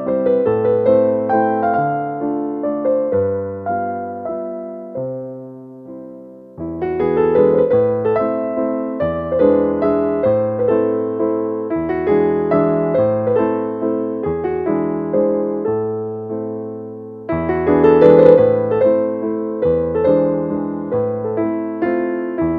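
Slow, gentle solo piano music, notes struck and left to fade, easing off before a new phrase starts about seven seconds in and a louder one near the end.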